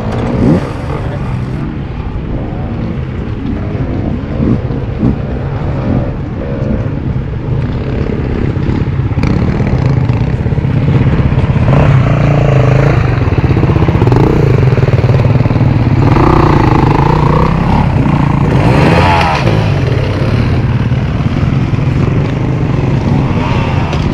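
Dirt bike engines running and revving up and down, growing louder about ten seconds in, with a quick rise in revs near nineteen seconds.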